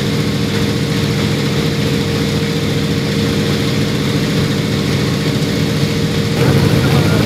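Antonov An-2's nine-cylinder radial engine and propeller running steadily in flight, heard from inside the passenger cabin; a little louder near the end.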